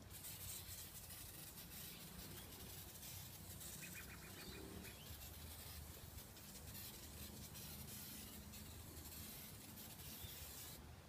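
Faint, steady hiss of an aerosol can of degreaser spraying onto a car's alloy wheel.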